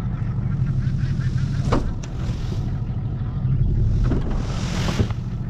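A truck engine running steadily under a dump trailer being emptied, with a few sharp knocks and a brief rushing swell near the end.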